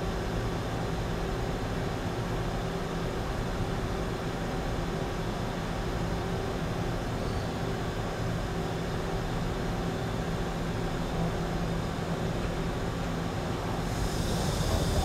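Steady machine hum of a Mazak Quick Turn 200 CNC lathe running, with a couple of steady low tones. A higher hiss joins near the end.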